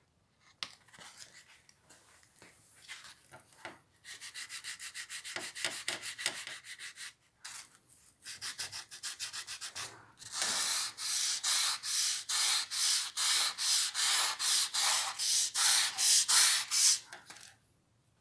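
Sandpaper rubbed by hand back and forth along the rusty steel shaft of an old wood-handled screwdriver, scouring off the corrosion. The strokes come quick and lighter at first, then louder at about two to three strokes a second through the second half, stopping shortly before the end.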